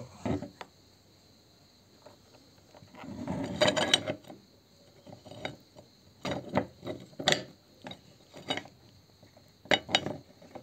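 Irregular clicks and crackles from a crushed, toothpaste-smeared plastic tube being worked out of a hand-cranked meat grinder's barrel and auger, with a longer, denser burst about three seconds in.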